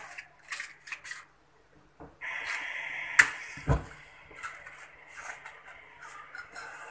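A gas stove burner being lit under a frying pan: gas starts hissing about two seconds in, a sharp click comes just after three seconds, then a low whump as the gas catches, and the flame hisses steadily after that. A few light knocks come at the start.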